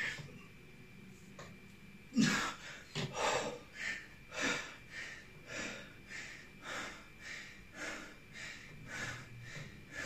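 A man breathing hard from the exertion of pull-up-bar exercise, quick puffs of breath about two a second. They start about two seconds in with a voiced gasp.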